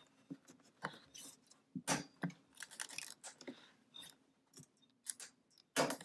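A series of irregular light clicks and taps as the memory compartment door is pressed back into its opening in the back of a 27-inch iMac.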